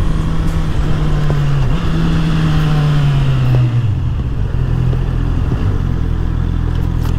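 Honda CB650R's inline-four engine running under way: its pitch steps up about a second and a half in, then falls away as the bike slows and settles at a lower steady note. Wind rush on the microphone fades as the speed drops.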